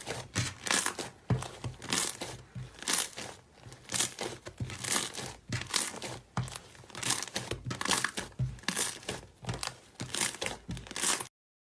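Slime being squeezed and pressed by hand, crackling and crinkling in repeated bursts about twice a second; the sound cuts off suddenly near the end.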